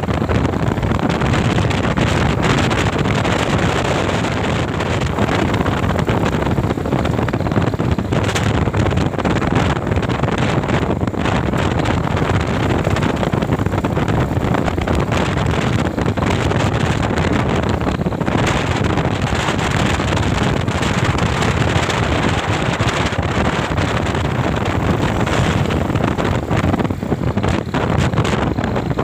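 Steady wind noise on the microphone: a loud, even rush with no breaks.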